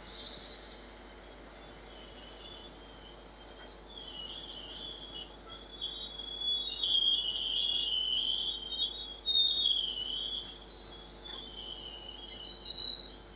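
Tank wagons of a freight train rolling past, their wheels squealing in high, wavering tones that come and go from about four seconds in and are loudest in sharp spikes near the end.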